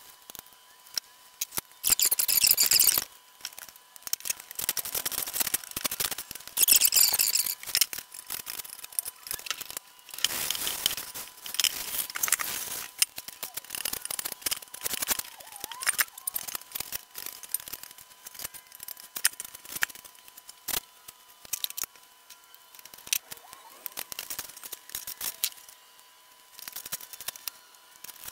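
Plastic spreader scraping and squeaking through polyester body filler, mixing it on a board and spreading it over a steel motorcycle fuel tank. The strokes come in short bursts, the longest about ten seconds in, with small taps and clicks between them.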